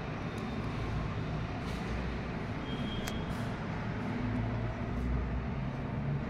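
Steady low rumble and hiss of background noise, with a faint click about three seconds in.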